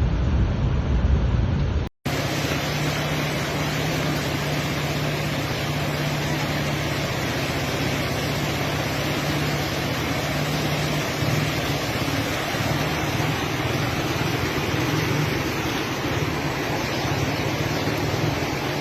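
Steady rushing water noise from floodwater and heavy rain. There is a brief dropout at a cut about two seconds in, and a low steady hum runs underneath until about halfway through.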